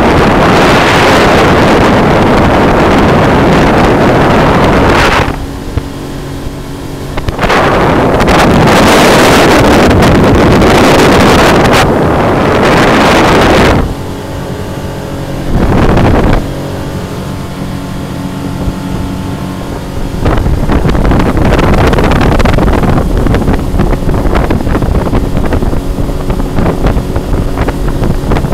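Motorboat underway with its engine running steadily under a loud rush of wind on the microphone and water past the hull. The rush drops away three times, for a few seconds each, letting the engine's even hum come through, then returns just as loud.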